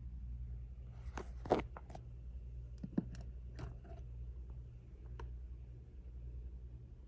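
A few light clicks and scrapes, like a small object being handled, with the loudest tap about a second and a half in, over a steady low electrical hum.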